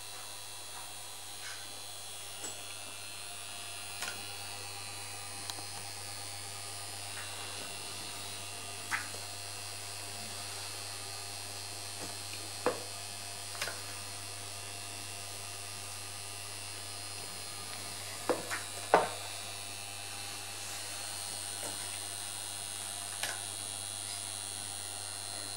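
Steady electrical hum from powered equipment, with sharp clicks scattered through it, the loudest pair about three-quarters of the way in.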